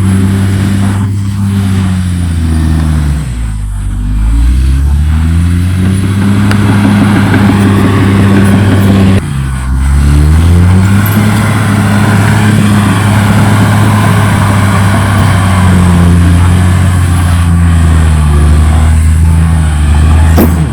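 CAT D6R XL bulldozer's diesel engine running steadily and loudly, its pitch sagging and climbing back about three seconds in, then dropping suddenly and recovering near the middle.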